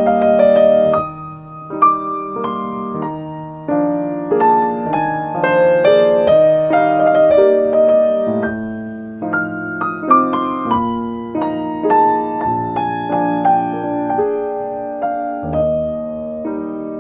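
Background piano music: slow, gentle chords with a melody played over them.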